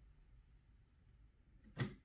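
Quiet room tone with one short, sharp knock near the end.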